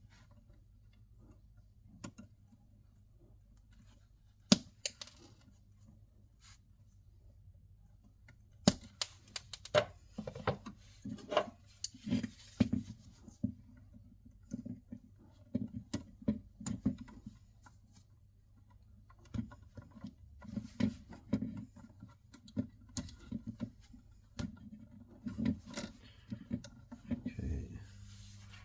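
Hand tools and electrical wires being handled while wiring a wall socket: irregular small clicks, taps and scraping, with a sharp click about four seconds in and another about nine seconds in. The handling comes in busy stretches, with a quieter gap in the middle.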